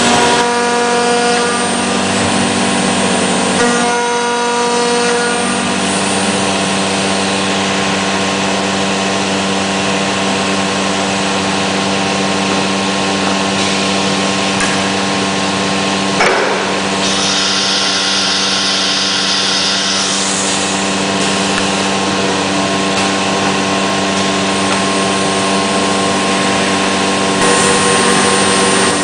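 SHMS1828D CNC router running steadily as it machines MDF: a constant spindle tone with cutting noise beneath it. A sharp click comes about 16 seconds in, and a harsher, higher hiss of cutting from about 17 to 20 seconds.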